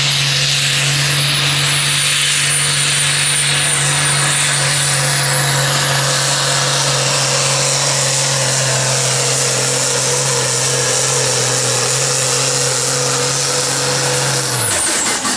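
Competition pulling tractor's engine running flat out under load on a pull, with a steady high whistle over it. Just before the end it shuts off and the pitch drops away.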